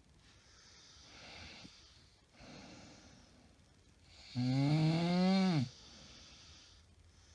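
A woman snoring in her sleep: quiet, airy breaths, then about four and a half seconds in one loud, buzzing snore lasting just over a second that drops in pitch as it ends, followed by quiet breathing.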